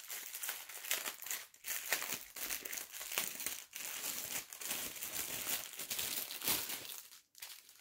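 Clear plastic bag of diamond-painting drill packets crinkling as it is handled, a quick irregular crackle that breaks off briefly near the end.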